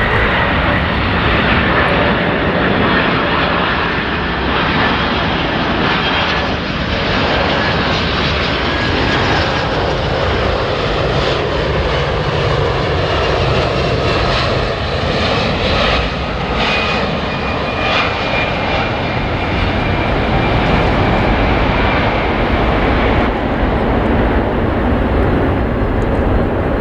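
Boeing 747-451's four turbofan engines on landing approach: a steady loud jet roar with a thin high whine that slowly falls in pitch.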